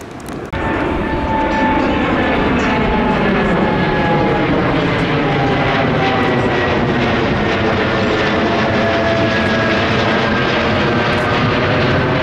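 Jet engines of a Boeing 787 climbing out overhead after takeoff. A steady loud roar cuts in abruptly about half a second in, with whining engine tones that slowly fall in pitch as the plane passes.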